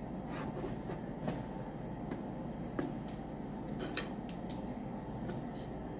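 Close-up eating of steamed crab and crawfish: chewing and handling shells, with a few sharp clicks and cracks.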